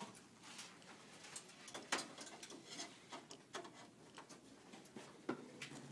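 Scattered faint clicks and taps of screwdrivers, screws and parts against open metal desktop computer cases as they are assembled, with one sharper click about two seconds in.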